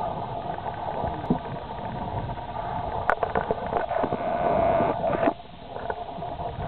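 Steady wind and water noise riding in a round bamboo basket boat on a river, with scattered short knocks and splashes from paddles and the boats from about three seconds in.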